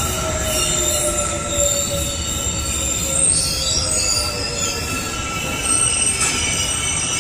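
Electric subway train running on the track: a low rumble with steady high-pitched wheel squeals and a whine that falls slowly in pitch over the first few seconds.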